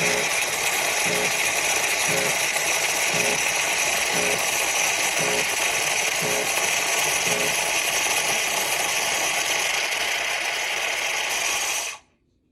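A coffee-making machine running loudly and steadily with a hissing whir and a faint pulse about once a second, cutting off abruptly near the end.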